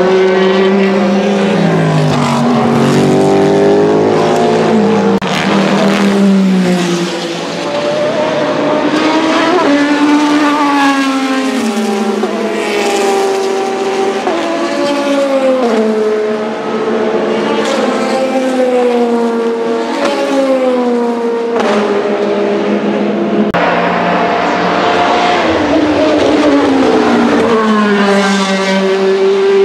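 Le Mans Hypercar engines at racing speed past the track edge, including the Vanwall Vandervell 680's Gibson GL458 4.5-litre V8. Several passes follow one another, the engine pitch stepping down through downshifts and climbing again under acceleration.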